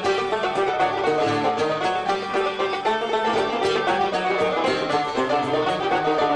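Algerian chaabi ensemble playing an instrumental passage between sung verses: a fast, busy melody on plucked lutes.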